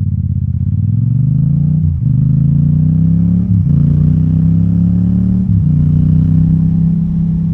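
Yamaha MT-07's parallel-twin engine accelerating up through the gears, its pitch rising and dropping back at upshifts about two, three and a half and five and a half seconds in, then pulling steadily.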